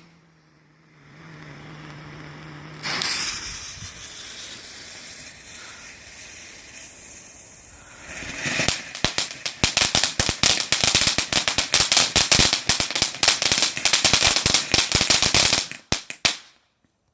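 Small consumer firework fountain from a youth-firework pack burning: a soft hiss from about a second in, becoming a louder spraying hiss about three seconds in. About halfway through it turns to loud, dense crackling, which stops suddenly near the end.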